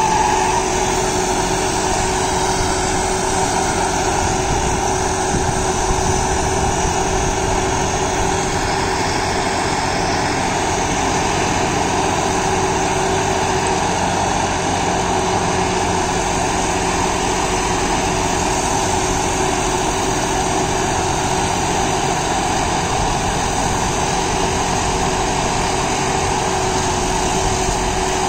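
John Deere 5075E tractor's 2.9-litre common-rail diesel running steadily under load, driving a Shaktiman Tusker rotary tiller through the PTO. The tiller's blades spin through soil and banana stalks with a continuous churning.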